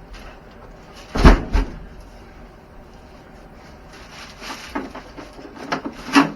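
Handling knocks and clunks while unboxing an RC truck and its packaging: two loud knocks just over a second in, then a run of lighter knocks with a loud one near the end.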